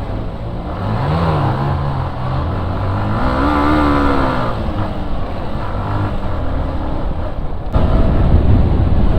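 Motorcycle engine revving up and easing off twice as the bike is ridden, over steady wind noise on the microphone. The wind noise gets rougher and louder near the end.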